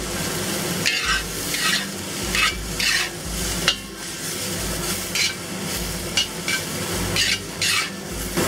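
Brown beech and king mushrooms sizzling in a hot, oiled cast iron wok. A metal wok spatula stirs and tosses them, scraping across the iron in about a dozen short strokes.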